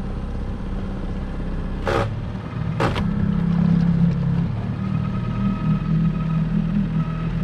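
Small outboard motor running steadily, with two sharp knocks about two and three seconds in, after which the engine runs a little louder.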